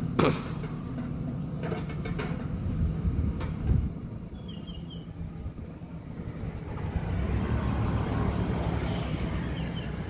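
JCB backhoe loader's diesel engine running under work, with a short rising whine just after the start and a sharp knock a little under four seconds in. The engine grows louder, working harder, about seven seconds in.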